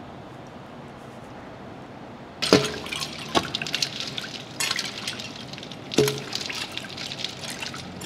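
A metal spoon stirring and whisking liquid in a large stainless steel mixing bowl, starting about two and a half seconds in: quick clinks and scraping against the bowl, liquid sloshing, and a few harder strikes that make the bowl ring briefly.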